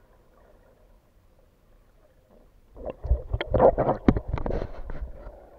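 Muffled underwater rumble from a waterproof action camera, then about three seconds in a burst of loud, irregular splashing and knocks as water sloshes against the camera housing while it breaks the surface.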